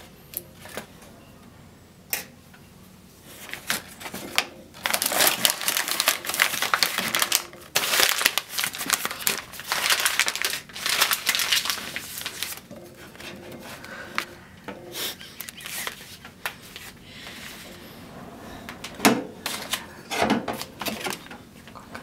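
Newspaper crinkling and rustling as a sweet potato wrapped in it is picked up and handled, in loud dense bouts for several seconds. A few sharp knocks come near the end.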